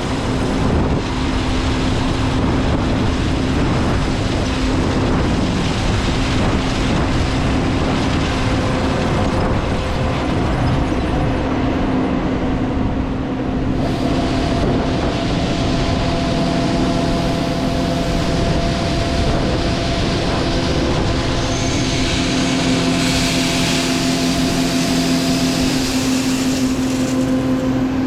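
Combine harvester running steadily while harvesting corn: a loud, even machine drone with a constant whine. A second, higher whine joins about halfway through and drops out near the end.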